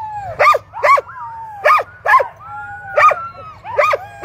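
Harnessed sled dogs barking and whining, about six sharp barks with whines between them: the eager pre-start racket of a sled dog team waiting at the start line.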